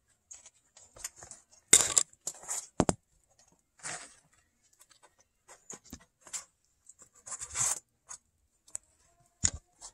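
Kittens scrambling and pawing about close to the microphone: irregular scuffs, scratches and rustles, with a few sharper knocks, the loudest about two seconds in and again near the end.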